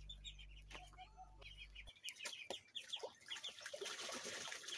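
Faint bird calls in a backyard poultry yard: many quick, high chirps with some clucking, and a low hum that stops abruptly about two seconds in.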